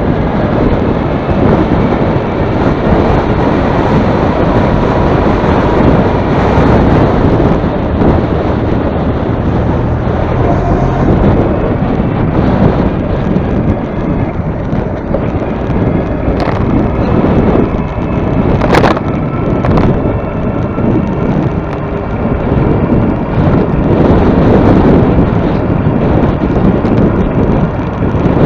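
Strong wind buffeting the microphone in a loud, continuous rumble, with one sharp click about two-thirds of the way through.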